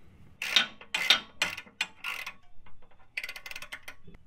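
Ratchet wrench clicking in a series of strokes as a nut on a sway bar disconnect link is run down tight, ending in a quicker run of clicks near the end.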